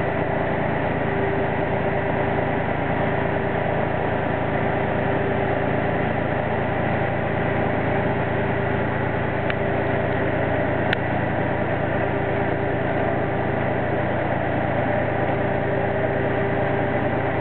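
Heavy crane diesel engines running steadily with a constant low hum and a held whine while the cranes hold a footbridge aloft on their slings. A couple of faint brief clicks come a little past halfway.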